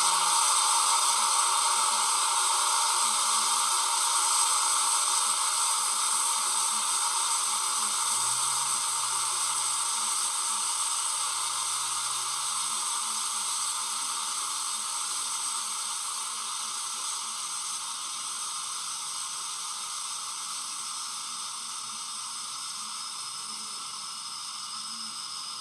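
DCC sound decoder in a model Class 91 electric locomotive playing the standing loco's sound: a steady, fan-like hiss that slowly fades away.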